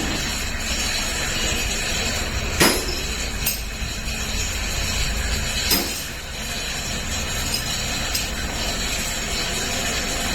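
Steady workshop noise with three sharp metallic knocks, the first the loudest, as gearbox parts are handled.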